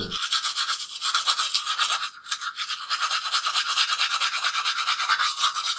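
Toothbrush bristles scrubbing teeth in rapid back-and-forth strokes, a scratchy brushing noise with a brief break about two seconds in.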